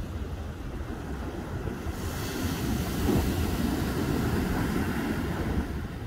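Small ocean waves breaking on a sandy beach and washing up the shore: a broad hiss that swells about two seconds in and eases off near the end, over a steady low rumble of wind on the microphone.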